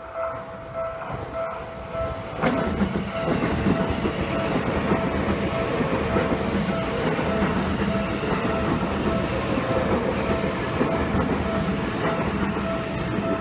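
A Seibu 30000 series electric commuter train passing close by: its running noise and wheel clatter rise sharply about two and a half seconds in and carry on almost to the end, with a faint high whine twice. A rapidly repeating bell-like tone rings throughout.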